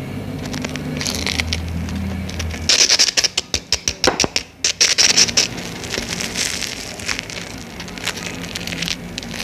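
Crisp fried bread roll being broken open: its breadcrumb-coated crust crackles in a quick run of small cracks for about three seconds, starting about a third of the way in, then lighter crackling.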